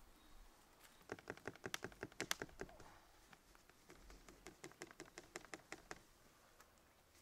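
Two runs of quick, evenly spaced light taps, about ten a second: the first starts about a second in and the second about four seconds in.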